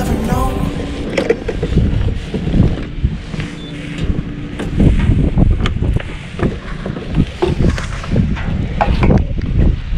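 Wind buffeting the helmet-mounted microphone: a loud, uneven low rumble with irregular gusty thumps.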